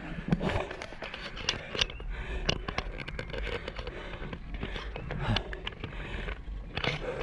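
Road bike climbing a very steep road at low speed: a busy run of irregular clicks, rattles and scraping from the bike on a rough road surface, with the rider breathing hard under the effort.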